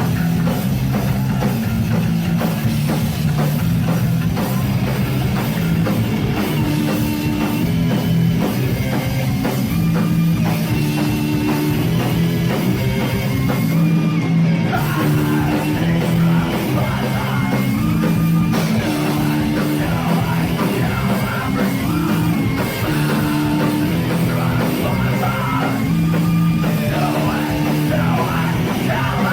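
Live heavy metal band playing loud and steady: distorted guitars repeating a low riff over a drum kit, with singing.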